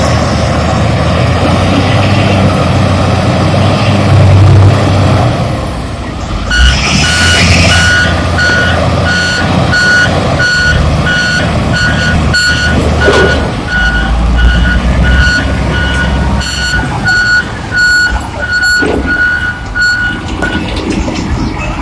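Diesel engine of a heavy construction machine running. From about six seconds in, a reversing alarm beeps steadily at about two beeps a second, then stops shortly before the end.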